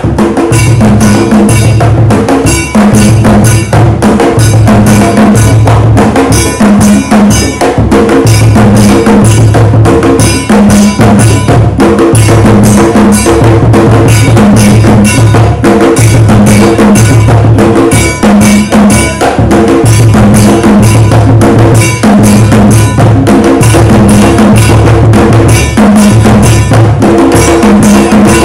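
Traditional drum ensemble playing a steady, driving rhythm for dancing: deep drum strokes under a repeating pattern on a struck metal bell.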